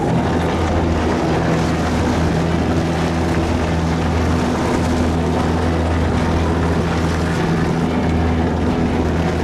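A fishing boat's engine running steadily with a low, even hum, mixed with the rush of wind and water while the boat is under way.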